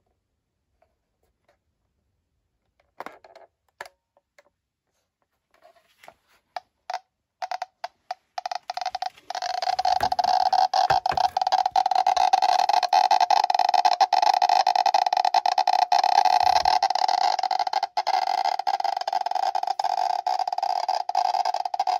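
Rasch RT-100 Geiger counter's speaker clicking: a few scattered clicks at first, coming faster about seven to eight seconds in, then from about nine seconds in the clicks run together into a loud, continuous buzz. The saturated count rate is the sign of strong radiation from the uranium-bearing bowl the counter sits on.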